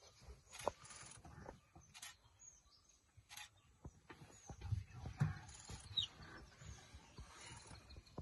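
Quiet forest ambience with a few short, high bird chirps, scattered faint clicks and some low bumps.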